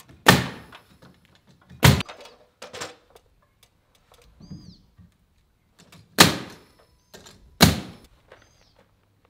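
Pneumatic nail gun driving nails into wood framing at a window rough opening: four loud, sharp shots, the first two about a second and a half apart and the last two about a second and a half apart after a pause, with a few lighter knocks between. The framing is being filled in because the rough openings are too big.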